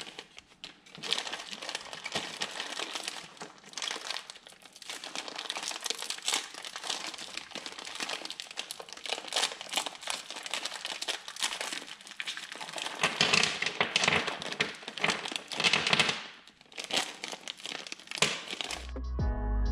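Crinkly wrapping being handled and pulled open by hand, an irregular crackle of crumpling with louder rustles in the later part. Music with a heavy bass comes in just before the end.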